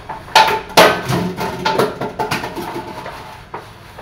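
Irregular knocks and clatter of dishes and utensils being handled at a kitchen sink, loudest and busiest in the first two seconds, then thinning out.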